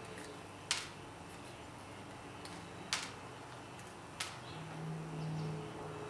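Three sharp clicks, a second or two apart, as insulation is snipped and pulled off wire ends during wire stripping, with a short low hum near the end.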